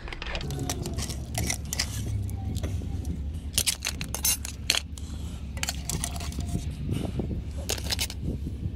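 Metal spoon clinking and scraping against an aluminium stock pot and on boiled brown crab shells as the crabs are lifted out of the boiling water, in several clusters of sharp clinks over a steady low rumble.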